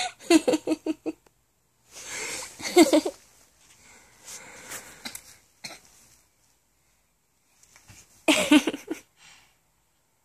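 A toddler's voice in short, high-pitched bursts of vocalising, four of them; the first breaks into quick stuttering pulses, and the last comes near the end after a quiet stretch of a couple of seconds.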